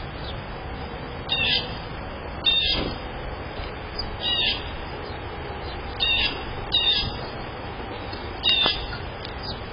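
House sparrows chirping: about six short, high chirps, spaced a second or two apart, over a steady background hiss.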